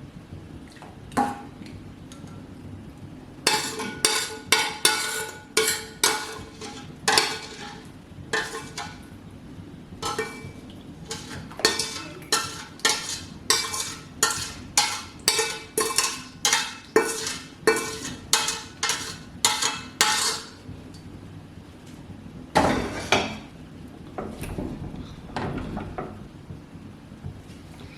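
Metal spoon knocking and scraping against a metal cooking pan in a steady run of ringing clinks, about two a second, followed by a heavier clatter of the pan near the end.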